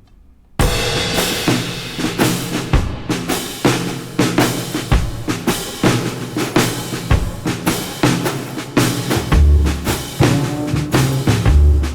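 Background music with a steady drum-kit beat, starting abruptly about half a second in.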